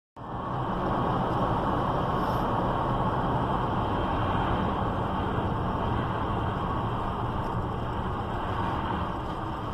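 Steady road noise inside a moving car's cabin: tyre hiss and a low engine hum, picked up by the dashcam.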